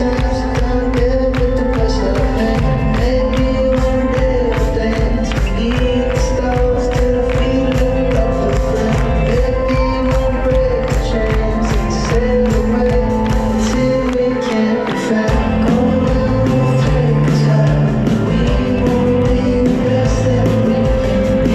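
Live rock band playing in a large hall: a steady drum beat under held guitar and keyboard tones and a bass line. A little past halfway the lowest notes drop out for about a second, then the bass comes back on a new line.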